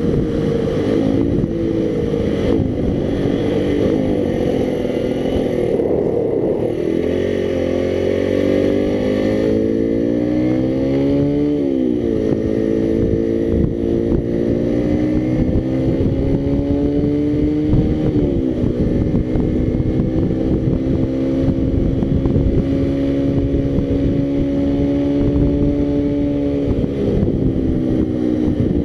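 Motorcycle engine running on the road, rising in pitch as it accelerates and dropping back sharply at two upshifts, about twelve and eighteen seconds in, then holding a steady note at cruise, with wind rush on the microphone.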